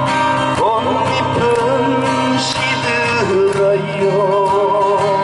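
Live acoustic guitar music: steady low chords with a held, wavering melody line over them.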